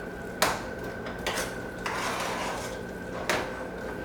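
Spoon knocking and scraping against a dish several times while mashed potatoes are dished up: sharp clinks about half a second, two seconds and three seconds in, with scraping between.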